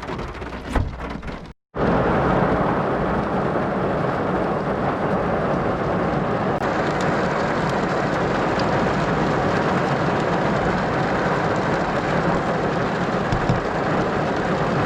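Heavy tropical rain pouring down in a steady, dense downpour. There is a quieter stretch in the first second and a half, then the rain runs loud and even.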